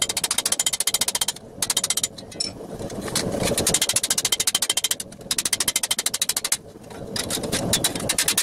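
Hand hammer beating a steel gauntlet plate over a steel stake in quick runs of about ten blows a second, sinking the plate's waist into an hourglass shape. Several short pauses break the runs as the plate is repositioned.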